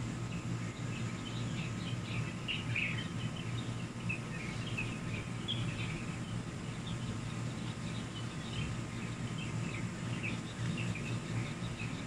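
Small birds chirping, many short high chirps scattered throughout in a dawn chorus, over a steady low outdoor hum.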